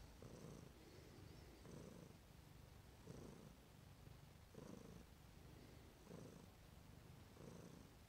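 Domestic cat purring close up as it kneads. The purr is faint and swells and eases with each breath, about every second and a half.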